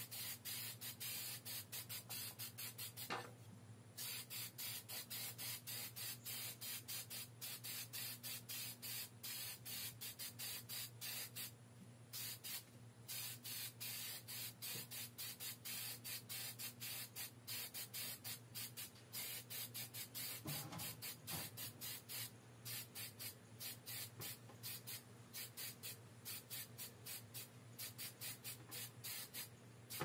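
Aerosol spray-paint can spraying in short, rapid bursts of hiss, about three a second, with a couple of brief pauses.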